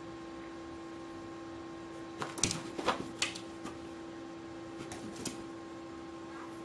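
A rabbit hopping and scrabbling about on carpet: a quick cluster of sharp taps and thumps about two to three and a half seconds in, and a few lighter ones around five seconds, over a steady hum.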